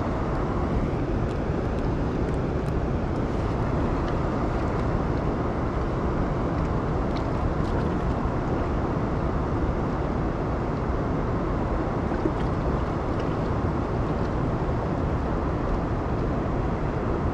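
Steady rushing of fast-flowing river water below a dam spillway, an even noise that does not change.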